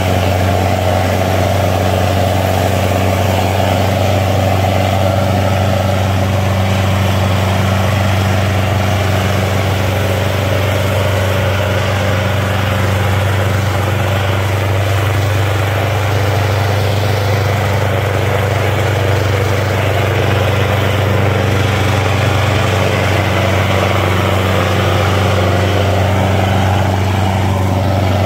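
Sonalika 750 tractor's diesel engine running steadily under heavy load, pulling a disc harrow through the soil, a constant deep drone with black smoke from the exhaust.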